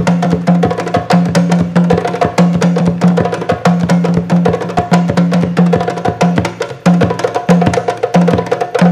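Djembe drum ensemble playing a fast, steady rhythm: djembes struck by hand together with a drum beaten with sticks, many sharp strokes a second over a recurring low drum tone.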